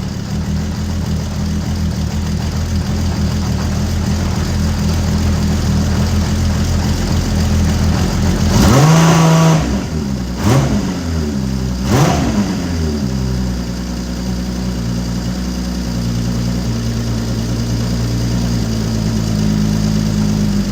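Honda CBX inline six-cylinder engine idling through a 6-into-1 exhaust on freshly rebuilt carburetors that have had no adjustment. About nine seconds in it is revved once, then blipped twice more in quick succession, each rev rising and dropping back before it settles to a steady idle.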